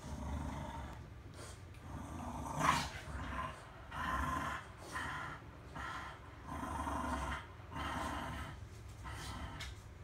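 English bulldog snoring in its sleep, a rough, rumbling snore about once a second, with one louder snort a little under three seconds in.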